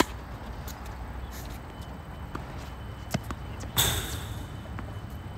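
Tennis racket striking the ball with a sharp pop at the start, followed by fainter ball hits and bounces on the hard court. About four seconds in there is a louder, half-second clatter.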